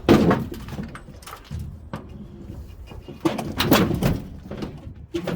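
Metal clanking and scraping as a front-load washer's drum shaft is wiggled and pulled against its corroded bearing, in two loud stretches, at the start and about three seconds in, with scattered knocks between.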